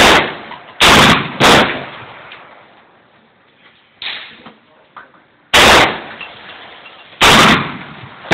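Stag Arms AR-15 rifle fired semi-automatically. Three shots go off in quick succession, then after a pause of about four seconds three more come a second or two apart, each crack trailing off in echo. A smaller knock sounds about four seconds in.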